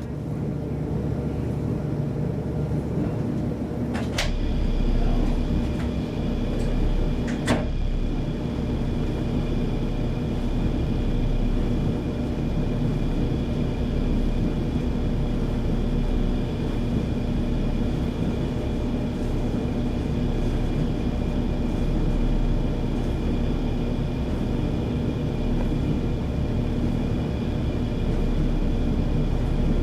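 Steady low mechanical rumble with faint steady high whining tones, like a vehicle's engine running. Two sharp clicks break in, about four and seven and a half seconds in.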